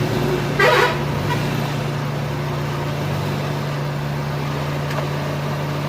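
Suzuki Mehran's three-cylinder engine idling steadily. The speaker blames the car's jerking and vibration on a broken engine mount.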